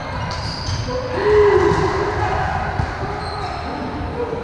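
Echoing gym hubbub of a volleyball game: sneakers squeaking on the hardwood floor, a ball bouncing, and a voice calling out loudly about a second in.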